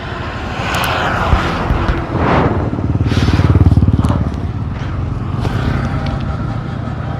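Motorcycle running on a road in traffic, with other vehicles passing by; the engine is loudest about three to four seconds in.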